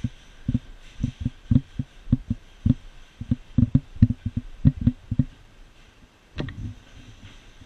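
A quick, uneven run of dull low thumps, often in pairs, that stops about five and a half seconds in, followed by a single sharper click.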